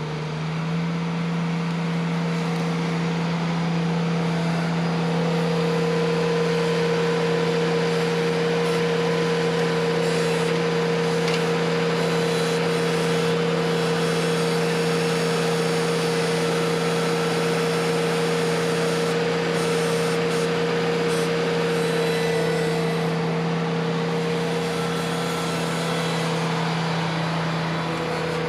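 Ventrac compact tractor's engine running steadily at high throttle, its pitch stepping up slightly about half a second in.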